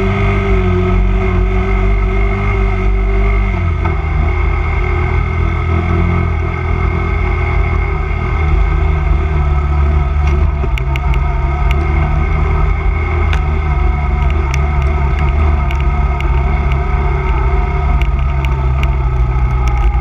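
Honda 250cc quad's single-cylinder engine running steadily under way, its note dropping about three and a half seconds in, with scattered sharp ticks through the second half.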